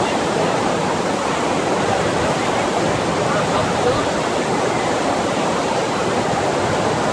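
FlowRider surf machine's pumped sheet of water rushing steadily up the ride surface.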